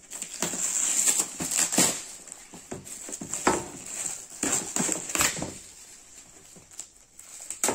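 Metallic foil gift wrap crinkling and tearing as it is pulled off a cardboard box, in quick irregular rustles, dying down about six seconds in.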